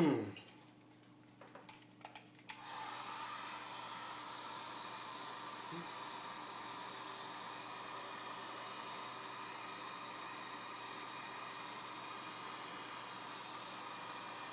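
A hot-air blower switches on about two and a half seconds in, after a few light clicks, and runs steadily with an even hiss and a faint steady tone. It is heating the phone's front glass to soften the adhesive under it.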